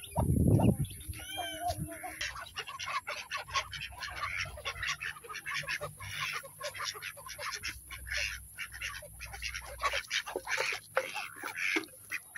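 Several ducks quacking in quick, continuous chatter, with a few longer rising-and-falling calls about a second in. A brief loud thump right at the start.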